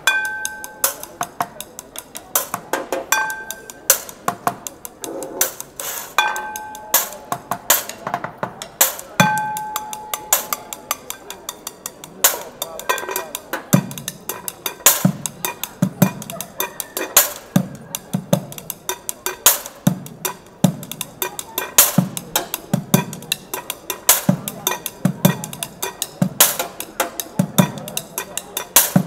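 Bucket drumming on a street busker's makeshift kit of plastic buckets, a metal pail, a frying pan and a metal sheet, played fast with drumsticks. In the first half, a ringing metallic hit comes about every three seconds among rapid stick strikes. From about halfway in, a steady beat of deep bucket thumps drives the rhythm.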